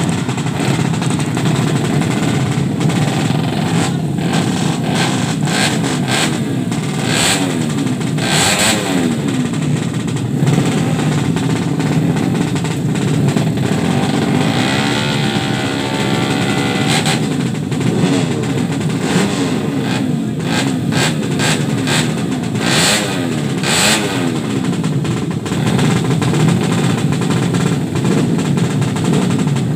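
Drag-race motorcycle engine revving hard and repeatedly, its pitch rising and falling with each throttle blip, with a few sharp cracks among the revs.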